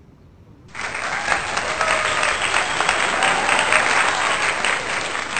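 Crowd applause sound effect: a dense burst of clapping that starts abruptly about a second in and keeps going.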